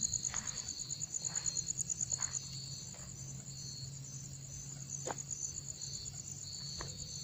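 Crickets chirping: one fast, high pulsing trill that stops about two and a half seconds in, and shorter trills from another a little lower, over a low steady hum.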